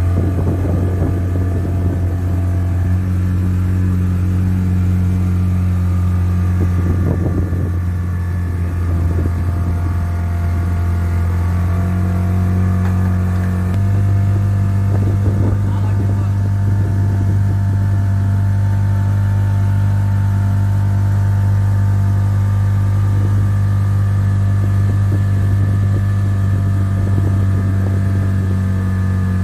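Small motorboat's engine running steadily under way, heard from on board with a constant low hum. The engine note changes abruptly and rises slightly about fourteen seconds in.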